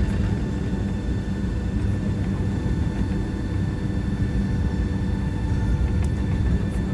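Steady low rumble of an airliner's cabin while the aircraft waits on the ground before takeoff, with a few faint steady whining tones above it.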